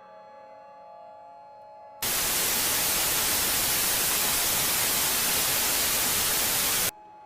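A loud burst of white-noise static cuts in suddenly about two seconds in and stops abruptly about five seconds later. Before and after it, a quiet ambient drone of held tones plays.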